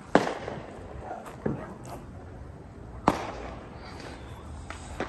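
Neighbourhood fireworks going off: sharp bangs and pops at irregular intervals, each with a short echo, the loudest right at the start and another about three seconds in.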